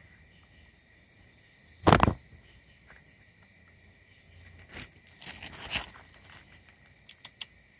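Steady high-pitched chorus of night insects trilling. About two seconds in comes one short, loud rustle or thump, and a few softer rustles and clicks follow later.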